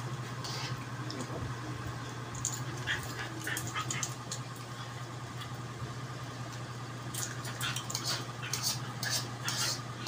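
An excited dog greeting its owner: scattered short snuffling, scrabbling and clicking sounds, busier in the last few seconds, over a steady low hum.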